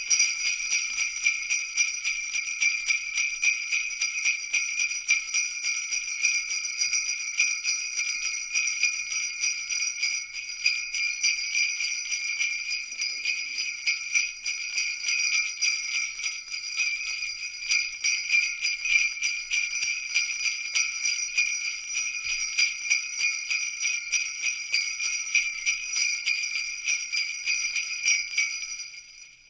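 A bunch of small jingle bells shaken steadily and continuously in a bright, high-pitched jingle, fading out at the very end.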